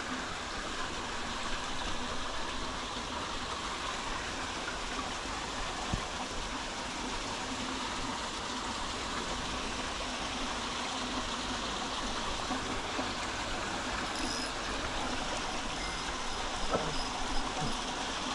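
A small forest stream running over stones: a steady rush of water. A few faint knocks come once about six seconds in and again near the end.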